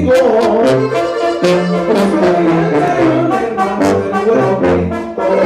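Brass band playing live: a tuba carries a bouncing bass line under higher brass horns, with regular percussion hits about four a second.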